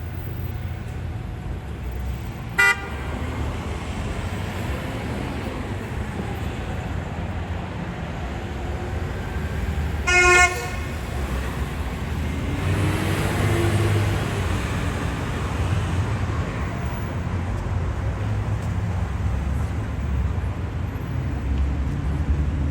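Street traffic with a steady low rumble, and a car horn tooting twice: a short blip about two and a half seconds in and a longer blast about ten seconds in. The traffic swells around the middle as a vehicle goes by.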